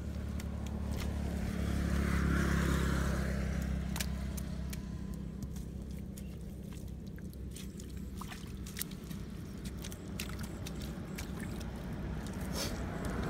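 A steady engine drone, with scattered sharp clicks and scrapes from a wooden stick digging into wet clay soil.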